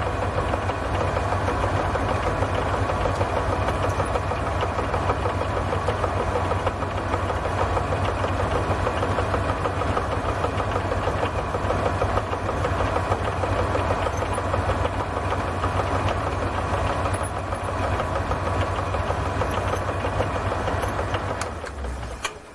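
Machine tool running steadily as it cuts a slot in a metal part, then stopping near the end.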